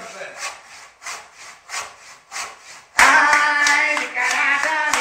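Hand saw cutting a wooden block clamped in a vise, its strokes in a quick, even rhythm. About three seconds in, a man's voice breaks in loudly singing over the sawing, with hand claps.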